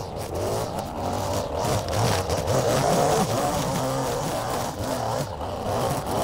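Gas string trimmer engine running and revving up and down as the line cuts through grass and weeds.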